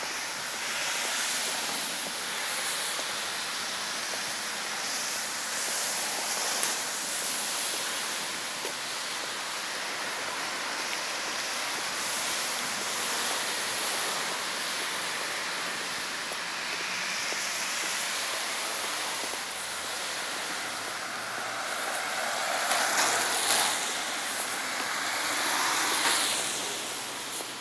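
Road traffic on a wet road: a steady tyre hiss that swells and fades as cars pass, loudest in one longer swell near the end.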